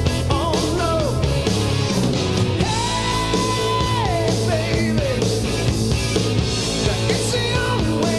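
Rock-style background music with a singing voice over a steady band; about three seconds in, one note is held for over a second before falling away.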